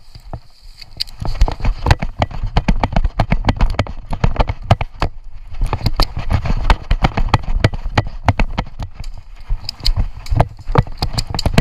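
Running footsteps crunching through dry leaf litter and twigs, a fast string of heavy thumps, picking up about a second in.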